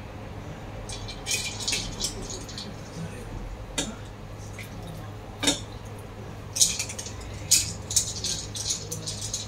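Ice cubes and wooden chopsticks clinking and rattling in a stainless steel bowl of ice water as chicken is pushed around in it. There are bursts of clattering about a second in and again in the second half, with a couple of single sharp knocks between them.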